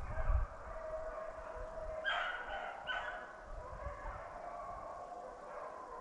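A pack of beagles baying in chorus, several hounds' held calls overlapping, as they run a rabbit's scent trail; two louder calls come about two and three seconds in.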